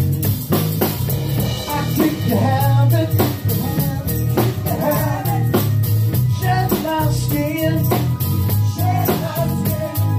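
Pop-rock song playing: a steady drum beat under bass and a bending sung or instrumental melody.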